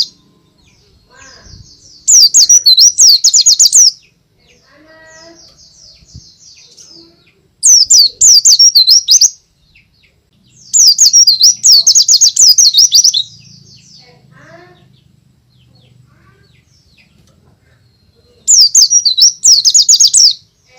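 White-eye (Zosterops) singing loudly in four bouts of rapid, high twittering, each lasting about one and a half to two and a half seconds. Faint chirps fill the pauses between bouts.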